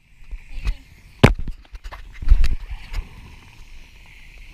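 A handheld GoPro being bumped and jostled on a wet trampoline: a few sharp knocks and thumps, over a faint steady hiss of water spraying.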